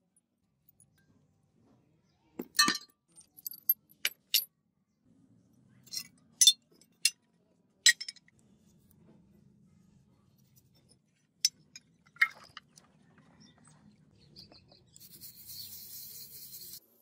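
Metal parts of a dismantled rusted electric drill clinking as they are handled and set down on a concrete floor: a string of sharp clinks over the first eight seconds, then two more a few seconds later. Near the end comes a short steady hiss as a part is scrubbed with a wooden stick in soapy water.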